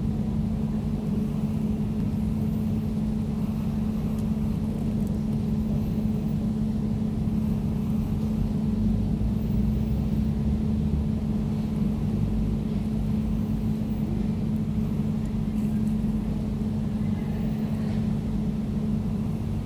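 Air conditioner running steadily: an even low hum with a steady tone over a deep rumble.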